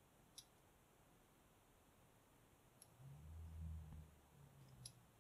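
Faint sharp clicks from a Weiser pin-tumbler lock being picked with a pick and tension wrench, the pins setting one by one. Three clicks about two seconds apart, with a soft low hum a little after the middle.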